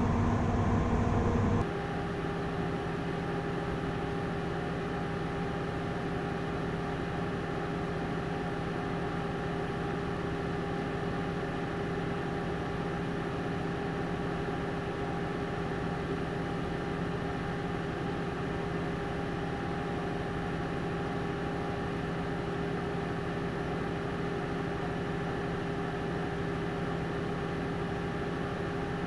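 Steady drone of ship's engine-room machinery heard in the engine control room, with several steady hum tones over an even noise. The level drops a step about two seconds in, then holds steady.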